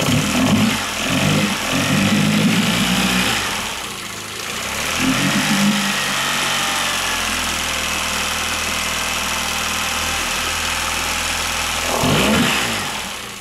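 2003 Yamaha F15 two-cylinder four-stroke outboard motor running in a test barrel, revved up briefly at the start, again about five seconds in and once more near the end, dropping back to a steady idle in between. Its valve clearances have just been adjusted after the top cylinder's intake and exhaust valves were found too tight, and the owner finds it now settles back to idle much faster.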